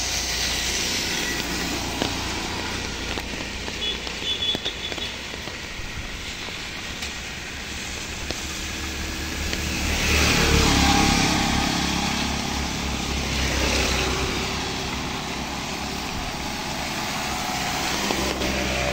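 Heavy rain falling steadily, with vehicles passing on the flooded road and tyres hissing through the water; one passes loudest about halfway through.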